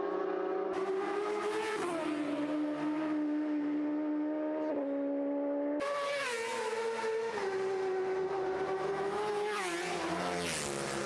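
Racing motorcycle engine at high revs, its pitch stepping down and up several times as it changes gear.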